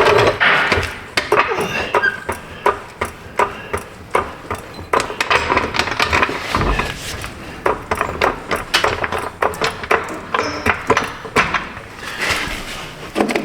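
Irregular metallic clanks, knocks and clicks of tools and shop equipment being handled, with an occasional short ringing ping.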